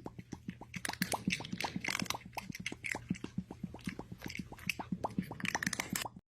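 A rapid, uneven run of small wet clicks and plops, several a second, over a faint steady hum.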